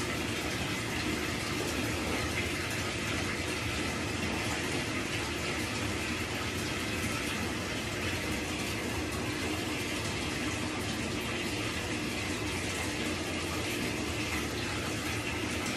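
Bathtub filling from the tap: a steady rush of running water.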